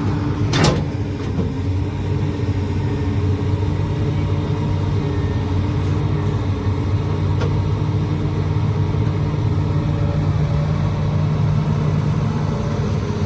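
Excavator's diesel engine running steadily at an even pitch while it loads soil, with one sharp knock about half a second in.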